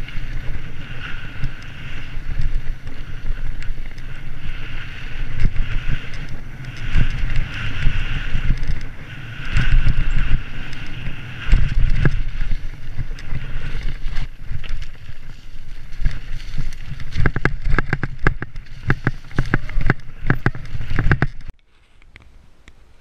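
Mountain bike ridden fast down a dirt trail, heard from a camera on the bike or rider: wind rushing over the microphone, tyres rolling over dirt and the bike rattling. The rattling turns into a run of sharp clattering knocks over rough ground towards the end. It then cuts off suddenly to quiet woodland background.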